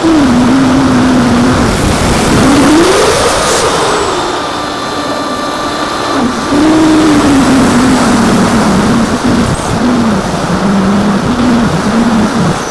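Electric motor and propeller of an AXN Floater-Jet foam FPV plane, heard through the onboard camera over a rush of wind. The motor whine rises in pitch a couple of seconds in, then drops back and goes quieter for a few seconds, and comes back on about halfway through, holding steady with small wavers.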